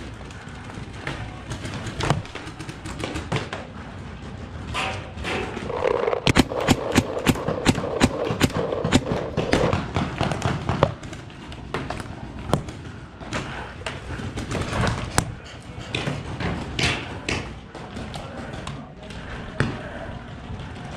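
Paintball markers firing: scattered sharp pops throughout, thickening into a fast string of shots several a second about six seconds in that lasts for around five seconds.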